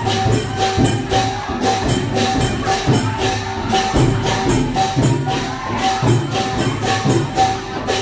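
Lively procession music from a percussion band, with clattering and jingling strokes in a steady beat of about two a second and a short repeated pitched note.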